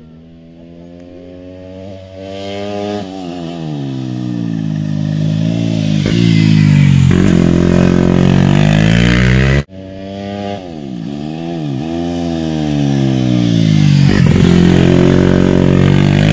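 Racing motorcycle engine approaching, growing louder as it comes up to the hairpin, its pitch falling and rising through braking, gear changes and acceleration out of the bend. The sound cuts off abruptly just under ten seconds in, and a second motorcycle comes through the same way.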